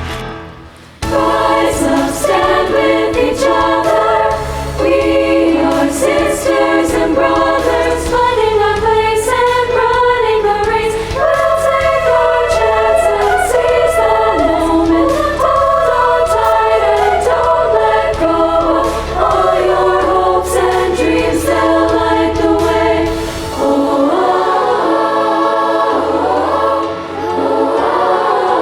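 Girls' choir singing in several parts over an accompaniment with a steady low bass line. The sound drops away briefly in the first second, then comes back in full.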